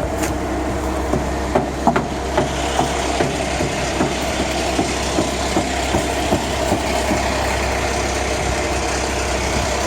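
Concrete mixer truck's diesel engine idling steadily, with a regular light knocking about two or three times a second that fades out after about seven seconds.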